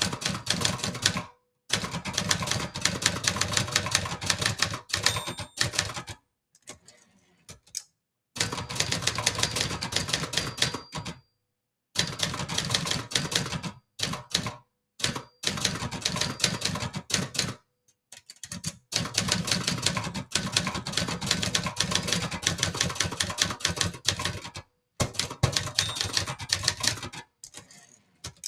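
Brother Charger 11 portable manual typewriter being typed on fast: runs of rapid clacking keystrokes, broken by short pauses. Near the end, the carriage is pushed back with the return lever.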